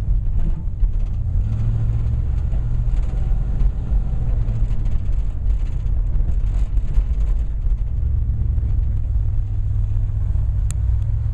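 The 1965 Ford Falcon's 289 V8 running steadily with a low, even rumble, heard from inside the car, with one sharp click near the end.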